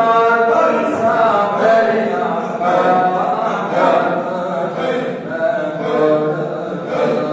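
A group of men chanting dhikr together, unaccompanied voices, the phrases held and repeated without pause.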